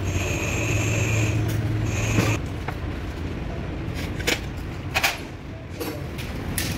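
Metal hand tool scraping at the flange of a truck gearbox cover, cleaning off old gasket material, with a few short sharp scrapes in the second half. A steady machine hum with a high whine runs at first and stops about two seconds in.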